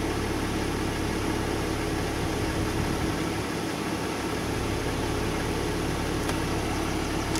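Steady hum and hiss of the BMW E46 running, heard from inside the cabin, with no sudden sounds.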